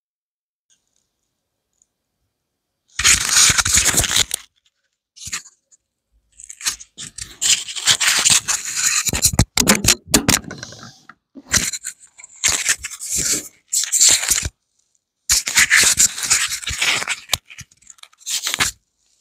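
Wooden boards scraping and knocking against each other as they are hauled up and tossed onto a roof. It starts about three seconds in and comes in several rough bursts of a second or two, with sharp knocks among them.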